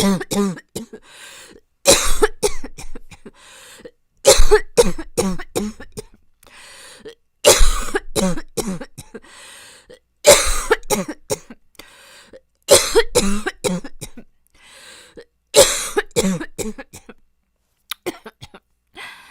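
A young woman coughing hard in repeated fits of several coughs each, a fit every two to three seconds, with breaths drawn in between. It is a persistent cough that she says has left her throat raw and sore.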